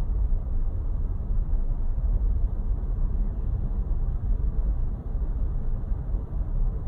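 Steady low rumble of outdoor street noise with no distinct events, its energy deep in the bass.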